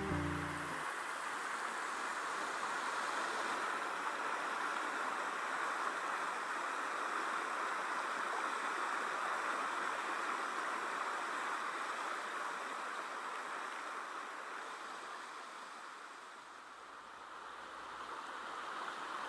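River water rushing steadily over a weir, an even hiss that eases for a moment near the end before rising again.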